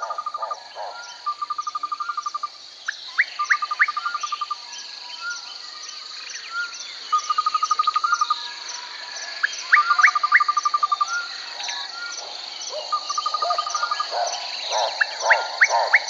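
Tropical jungle chorus: a steady high insect drone with faint regular ticking above it, repeated short rapid trills, and a few quick rising whistles. Rhythmic frog croaking is heard briefly at the start and builds again near the end.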